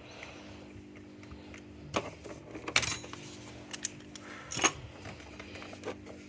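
Sharp clicks and knocks from a laptop being handled, the loudest about two, three and four and a half seconds in, with a steady low hum underneath.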